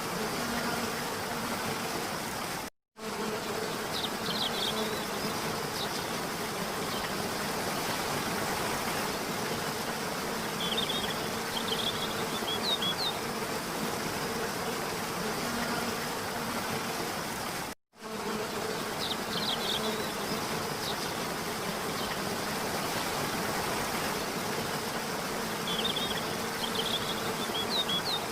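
Steady rush of a waterfall, with clusters of short high chirps every several seconds. The sound cuts out completely for a split second twice, about fifteen seconds apart.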